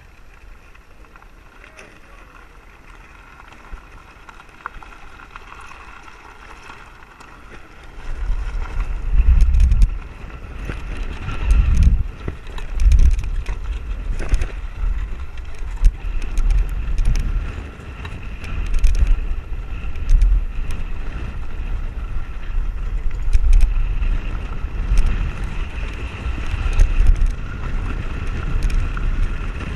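Wind buffeting the microphone of a camera mounted on a moving land yacht, with the cart rolling over the sand: a steady rush at first, then strong gusty low rumbling from about eight seconds in. Scattered sharp clicks and rattles from the rig run through it.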